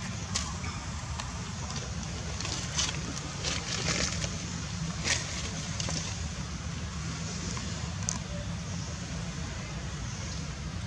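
Steady low outdoor rumble, with scattered short rustles and clicks; the sharpest comes about five seconds in.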